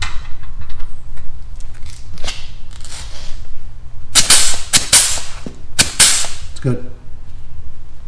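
Air-powered grease gun pumping grease into a backhoe bucket pivot fitting: a series of sharp hissing bursts as the trigger is pulled, faint at first and then three loud ones about four to six seconds in, over a steady low hum.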